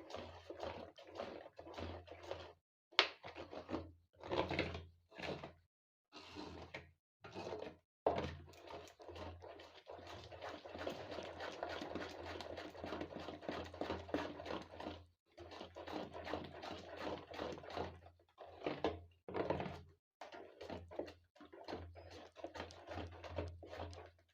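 Rice flour being stirred into thick ground dosa batter in a large bowl: irregular squishing and scraping over a low hum, with a sharp knock about three seconds in and another about eight seconds in.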